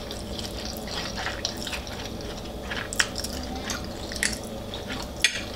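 Wet eating sounds of a mouthful of spicy Korean noodles being chewed, with a few small clicks scattered through.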